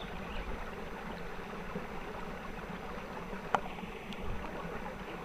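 Steady rushing of a small trickle of water spilling into a pond, with one sharp click about three and a half seconds in.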